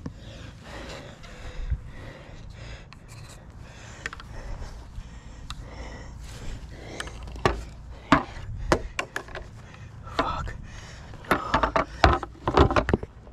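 White vinyl railing sections being handled on grass: rubbing and light clatter, then a run of sharp knocks and clicks in the second half.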